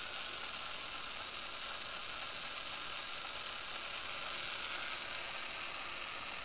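Model-train sound decoder playing a steady steam-locomotive hiss through its small speaker, with faint regular high ticks at about four a second.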